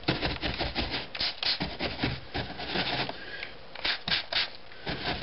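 Stiff-bristled house-painting brush scrubbing latex paint into carved extruded Styrofoam, a dense run of quick scratchy strokes. About four seconds in, a few short hisses from a hand spray bottle of water.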